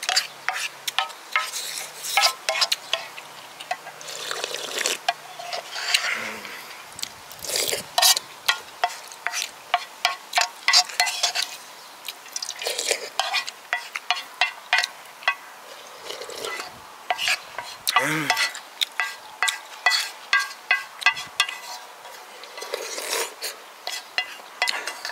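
A wooden spoon scraping and clicking against a black metal pan as the last of the rice and soup is gathered up, with close-up slurping and chewing between spoonfuls. Near the end, the pan is tipped up to drink the remaining broth.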